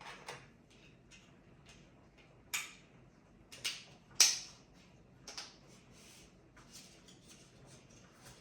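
Irregular light clicks and knocks from hands handling the Terramaster F2-423 NAS hardware, with three sharper clicks close together in the middle.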